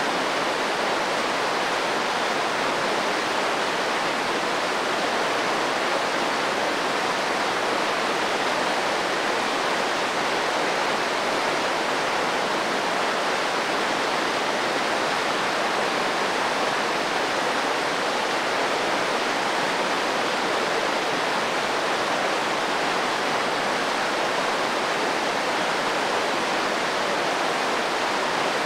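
Mountain creek in full flow, whitewater rushing over rocks in a steady, unbroken rush.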